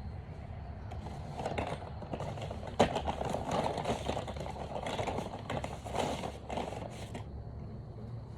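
Scraping and rustling with several sharp clicks, loudest about three seconds in, over a low steady hum.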